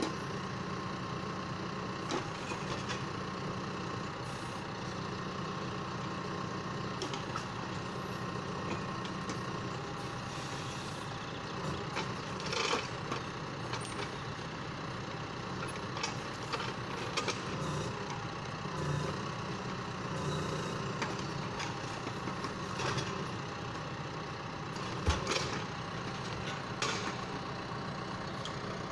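John Deere 6115M tractor's diesel engine running steadily while it powers a timber trailer crane, with occasional knocks of logs being loaded onto the trailer; the loudest knocks come about halfway and near the end.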